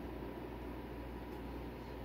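Steady background hum with a hiss, unchanging and with no distinct knocks or clicks.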